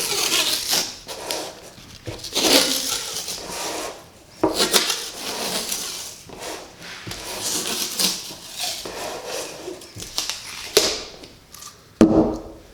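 Small oak pieces of a box being handled: clattering knocks and scraping in uneven bursts.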